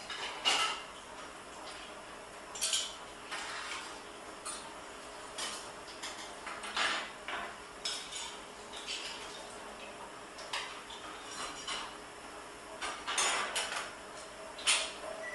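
Kitchen knife clinking and scraping as a large fish is filleted: irregular sharp clicks with short scrapes, some louder than others.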